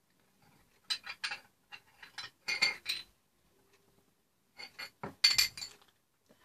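Pieces of a toy tea set, cups and plates, being handled and clinking against each other in short clusters: a few about a second in, more around two and a half seconds, and the loudest around five seconds.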